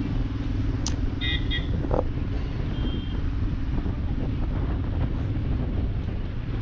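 Motorcycle riding along a town road: a steady low rumble of the engine and wind on the microphone, with a sharp click about a second in followed by two short high beeps.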